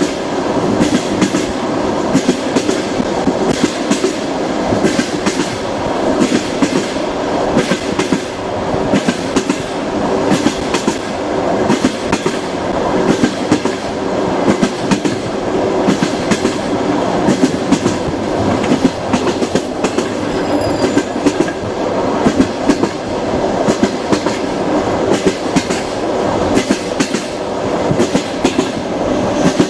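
Passenger train wheels clattering over the rail joints at running speed, a steady clickety-clack with a constant rumble.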